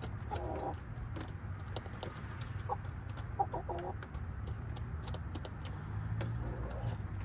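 Hens clucking softly in short calls, about half a second in, briefly near three seconds, again around three and a half seconds, and faintly near the end, with scattered light clicks and a steady low hum underneath.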